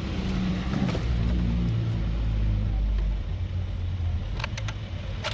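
Low rumble of a motor vehicle nearby, loudest early on and easing after about three seconds, with a few sharp clicks of fuel-pump parts being handled near the end.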